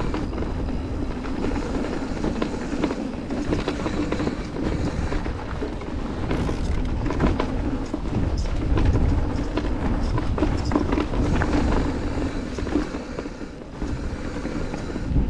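Electric mountain bike rolling fast down a gravel flow trail: steady tyre noise, frequent rattles and clicks from the bike over bumps, and wind rumbling on the action-camera microphone.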